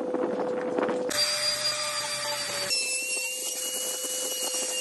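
Table-mounted wood router running with a steady high whine. The sound changes abruptly about a second in and again near the middle.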